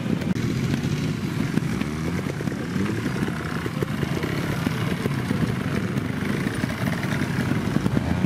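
Trials motorcycle engine running at low revs, its pitch wavering up and down with small throttle changes.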